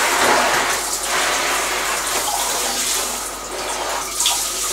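Handheld shower head running, its spray hitting a large sheet of watercolour paper and the shower floor as the whole sheet is soaked: a steady rushing hiss.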